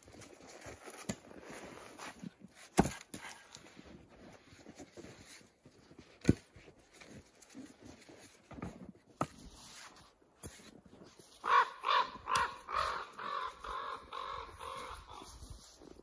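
Two sharp wooden knocks about three and six seconds in, split firewood being dropped onto a pile, with lighter knocks between. About twelve seconds in, a crow-family bird gives a run of harsh caws lasting about four seconds.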